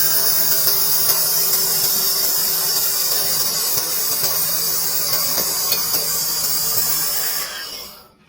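Stick-welding arc burning steadily with a loud, even hiss and crackle; it stops near the end.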